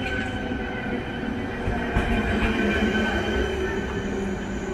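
ČD CityElefant double-deck electric train (class 471) running slowly past the platform, a steady rumble with a constant high whine on top.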